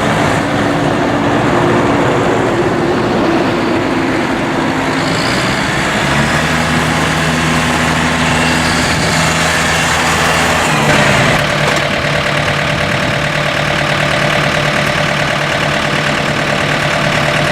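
John Deere 4500 compact tractor's four-cylinder Yanmar diesel engine running steadily. Its note changes twice, about six and eleven seconds in.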